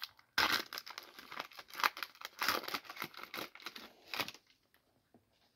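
Foil wrapper of a 2023 Donruss football trading-card pack being torn open and crinkled by hand: a run of crackling tears starting about half a second in and stopping a little after four seconds.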